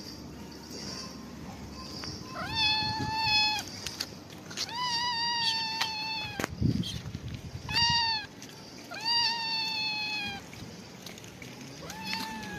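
Black-and-white stray cat meowing about five times, each meow a long, high call that rises sharply at the start and is then held.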